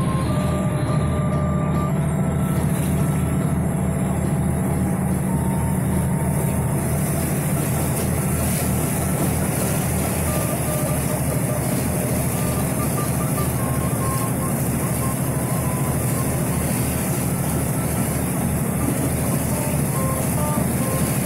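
Boat engine running steadily with a low, fast-pulsing rumble, under a constant hiss of wind and water rushing past.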